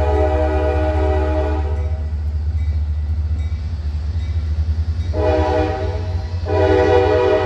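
Metra train's multi-note air horn sounding a chord in blasts: one held until about two seconds in, then after a pause a short blast of about a second, quickly followed by another that is still sounding at the end. A steady low rumble from the train runs underneath.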